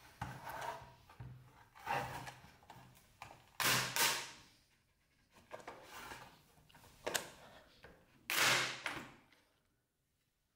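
Plastic case of a Seagate Expansion external hard-drive enclosure being prised apart and its top shell pulled off by hand: a series of scrapes and rubs, the two loudest about four and eight and a half seconds in, with a sharp click about seven seconds in.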